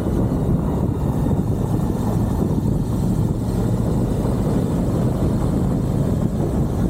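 Suzuki V-Strom 1050XT motorcycle's V-twin engine running steadily while riding, heard from onboard as a constant low rumble.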